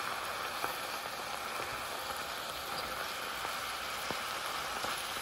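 Wild greens cooking down in a hot pan with a little water, giving a steady simmering hiss, with a few light taps as a wooden spatula stirs them.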